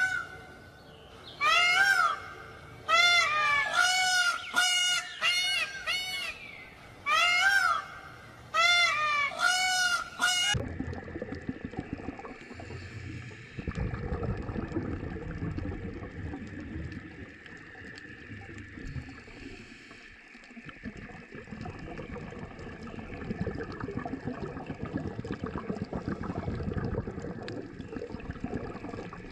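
Geese honking: a rapid run of short calls, each rising and falling in pitch, lasting about ten seconds. Then the calls stop and a steady, quieter rushing noise follows.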